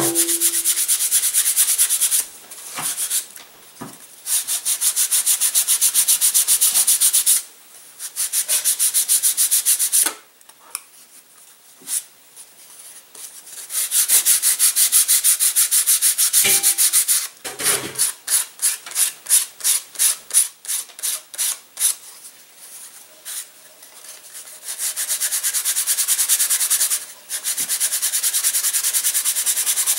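Sandpaper rubbing back and forth on the thin horizontal tail of an indoor hand-launch glider, thinning it down to save weight. The sanding comes in runs of quick strokes a few seconds long with short pauses between. Around the middle the strokes are slower and separate, about three a second.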